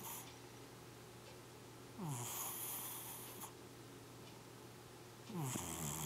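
Ginger-and-white cat's sleeping breath, audible as a light snore. One breath comes about two seconds in and another near the end, each lasting over a second and opening with a short falling tone.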